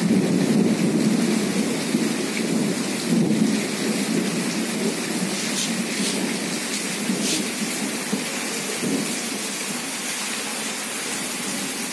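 Steady rain falling on a flooded street, a dense hiss with a heavy low rumble underneath, a little louder in the first few seconds.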